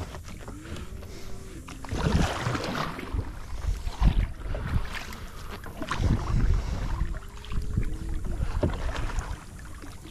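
Kayak paddle strokes in the water, a splash and surge about every two seconds, with wind rumbling on the microphone.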